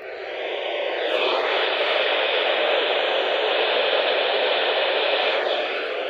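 Weather radio receiver putting out a steady hiss of static, thin like sound through a small radio speaker. It swells over the first second and then holds even.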